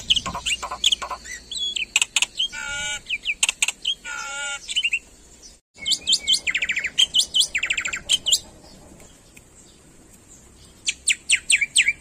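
Black-winged starling singing a varied song of sharp whistled notes mixed with rapid rattling trills. It falls quiet for a couple of seconds about two-thirds through, then resumes with quick whistles near the end.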